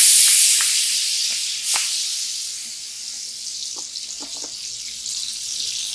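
Palm oil sizzling in a hot pot as it heats to bleach, a steady hiss that is loud at first and fades over the next few seconds, with a few faint pops.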